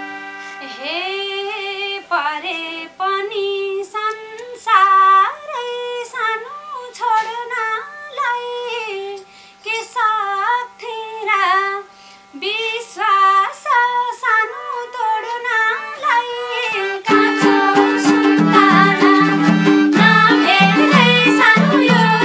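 Instrumental interlude of Nepali dohori folk music: a solo melody with bends and trills over a held drone note, then about 17 seconds in the full band with a steady hand-drum beat comes in.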